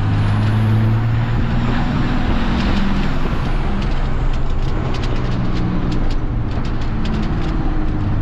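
A 5.9-litre 12-valve Cummins turbo-diesel running as the truck drives, a steady low drone. A quick run of sharp ticks comes about five to seven seconds in.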